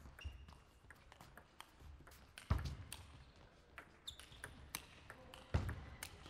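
Table tennis rally: the celluloid ball clicking off the bats and the table in quick exchanges, with two heavier thuds about two and a half and five and a half seconds in.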